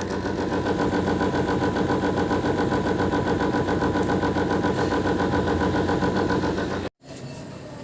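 Window air conditioner running with its compressor on: a loud, steady mechanical hum with a fast rattling vibration, which the technician puts down to a dirty, unbalanced blower that wobbles and knocks against something once the compressor runs. It cuts off suddenly near the end, leaving a quieter hum.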